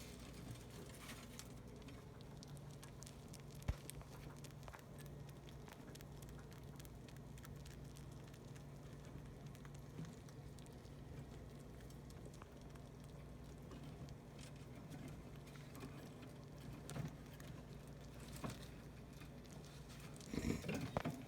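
Small pet rodents eating and scurrying about: faint scattered pattering and light clicks over a steady low hum, with one sharper tap about four seconds in.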